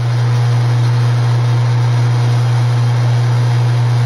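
Metal lathe running steadily while a cast bronze fitting is turned: a constant motor hum over an even mechanical whir.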